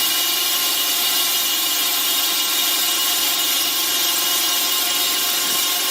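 Drill spinning a diamond core bit (hole saw) through porcelain tile: a steady, unbroken high grinding whine with a hiss, the bit kept wet with sprayed water so it does not burn out.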